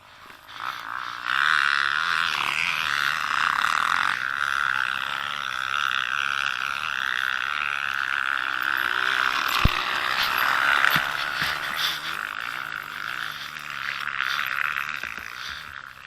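Trail motorcycle engine running hard under load, its buzzy note picking up about a second in and holding steady, with two sharp knocks near the middle.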